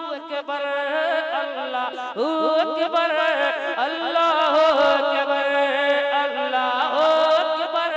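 Wordless vocal naat music: several layered voices singing a flowing, ornamented melody, with no instruments heard.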